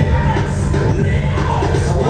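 Loud dance-battle music over a sound system, with a heavy, steady bass line.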